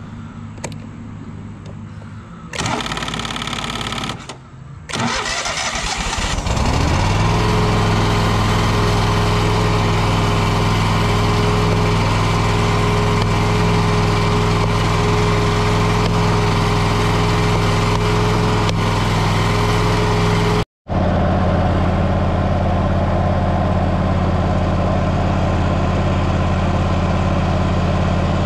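Scag Wildcat mower engine turned over by its starter in two short bursts, catching about six seconds in and then running steadily. After a brief dropout about two-thirds of the way through it runs on with a broader rushing sound, as the mower deck's PTO clutch is engaged to test the repaired clutch wiring.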